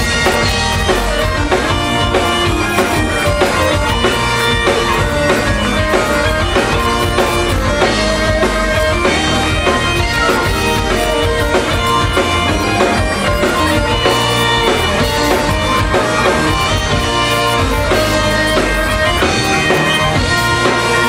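Live Celtic rock: bagpipes playing the tune over electric guitars and a drum kit with a steady beat.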